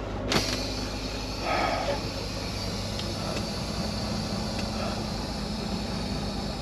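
Compressed air hissing out of a Volvo VNL truck's air suspension as its airbags are dumped, starting with a sudden burst just after a dash switch is pressed and continuing as a steady hiss. Under it the truck's diesel engine idles steadily.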